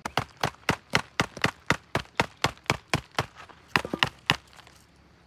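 A wooden stick knocking rapidly against a machete blade, about four sharp knocks a second, to shake ant eggs out of the nest stuck on the stick. The run breaks off after about three seconds, a few more knocks follow just before the four-second mark, then it stops.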